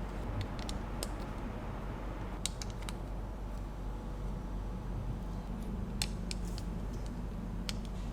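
Small plastic building bricks clicking and tapping as they are handled and pressed together: scattered single sharp clicks, a few in quick succession, over a steady low hum.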